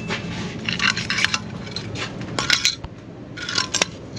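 Scraping and rubbing with light clinks and clicks as a wooden snap rat trap is picked up and handled on a dirt floor, in a few short bursts.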